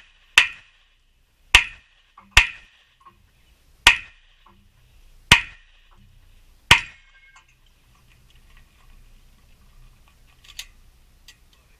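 Six handgun shots, sharp cracks each with a short echo, spaced about a second to a second and a half apart; after them, two faint clicks near the end.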